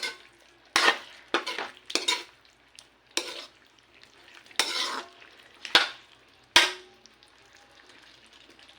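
A utensil stirring and scraping pork strips in a pan of sizzling, cooked-down soy and oyster sauce. There are about seven separate strokes, then only a faint sizzle for the last couple of seconds.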